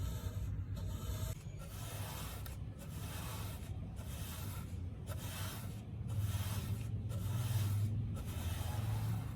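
A rusty knife blade being worked by hand with an abrasive, in steady back-and-forth rubbing strokes about once a second, over a low steady hum.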